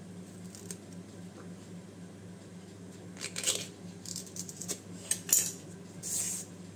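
Fibrous outer sheaths of a wild banana flower being torn and peeled off by hand, giving a few short crackly rips about halfway and again near the end. A steady low hum lies underneath.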